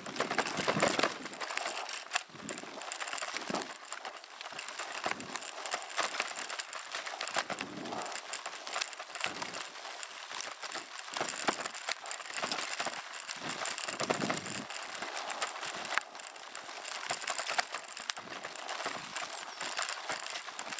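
Bicycle riding over a rough dirt track: tyre noise on the ground with constant small rattles and clicks from the bike and its bouncing camera boom.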